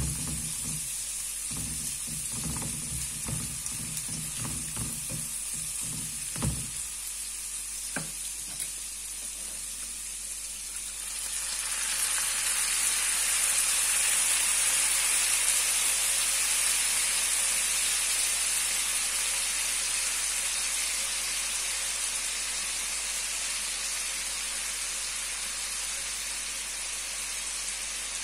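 Chopped garlic and ham frying in oil in a nonstick pan, with a spatula stirring and scraping against the pan for the first several seconds. About eleven seconds in, the sizzle jumps much louder as orange juice is squeezed into the hot oil, then slowly eases off.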